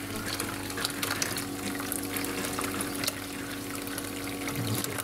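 An electric pump running steadily with a hum, forcing water into a home heating system, while trapped air is driven out through the boiler and its vent with a continuous hissing, crackling sputter of air and water.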